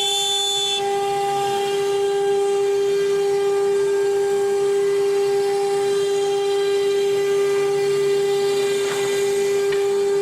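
Spindle of a CNC router for cutting advertising signs, running with a steady high whine that holds one pitch.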